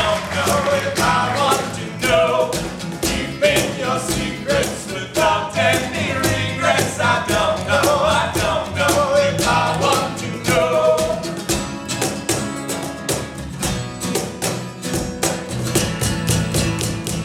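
Live band playing with drums, a voice singing over it for about the first ten seconds, then the band carrying on without the voice.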